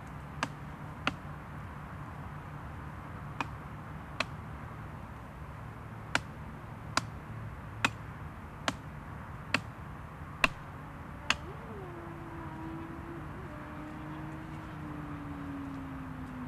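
About a dozen sharp knocks, roughly one every 0.8 seconds, over a steady low hum; after the last knock a faint tone sets in and slowly falls in pitch.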